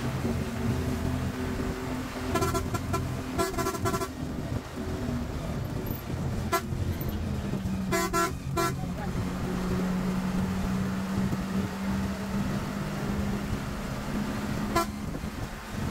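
Coach bus engine and road noise droning steadily inside the cab, with a horn tooting in quick runs of short blasts about two seconds in and again around eight seconds in, and a couple of sharp clicks.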